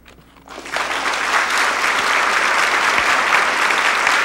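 Audience applause, starting about half a second in and building at once to steady clapping.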